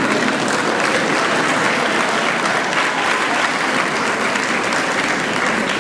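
An audience in a hall applauding steadily, a dense even clapping.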